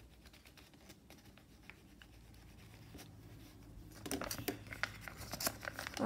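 Paper rustling and crinkling as a sheet is folded and handled by hand. It is faint at first and grows louder from about four seconds in, with a run of crisp crackles.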